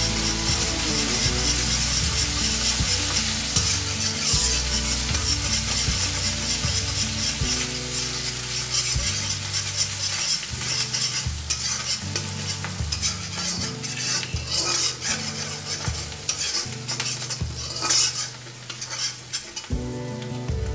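Chopped onion and chilli-ginger-garlic paste sizzling in hot oil in an iron kadhai, stirred and scraped round the pan with a spatula as the onion nears golden. The sizzle eases a little in the last few seconds.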